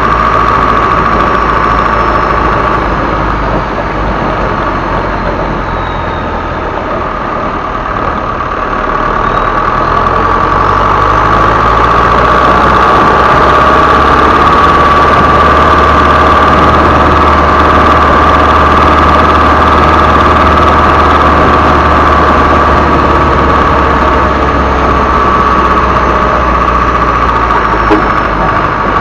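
Isuzu Elf HD truck's turbocharged diesel engine running, with a steady high turbo whistle over it. The engine drops back a little about four seconds in and picks up again around ten seconds in, holding steady from there with the whistle at its strongest.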